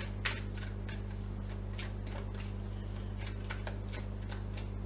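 A deck of oracle cards being shuffled by hand, giving a run of soft, irregular card clicks and slaps, about three or four a second, over a steady low electrical hum.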